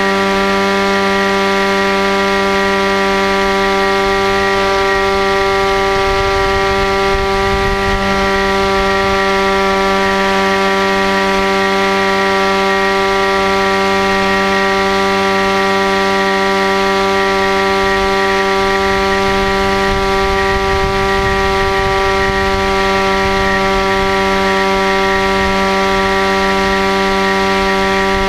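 Electric motor and propeller of a scratchbuilt foam RC plane heard from a camera on the airframe: a steady buzzing whine whose pitch holds level at constant throttle, with wind rumble on the microphone underneath.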